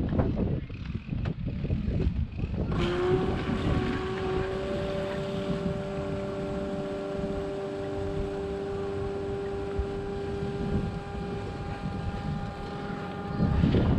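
Caravan water pump kicking in about three seconds in and running with a steady whine as the water is turned on, pressurising the water heater to test the newly fitted pressure relief valve for leaks. Before the pump starts, low wind rumble on the microphone.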